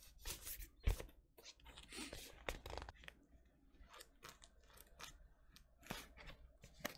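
Fingers picking at and tearing the plastic shrink wrap on a vinyl LP sleeve: a run of small crinkles, scratches and clicks, with one sharper knock about a second in.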